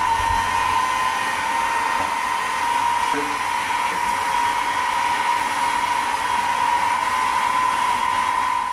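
Fan bar of several small 12 V DC cooling fans running at full speed: a steady, rather loud whine over the hiss of moving air. It cuts off near the end.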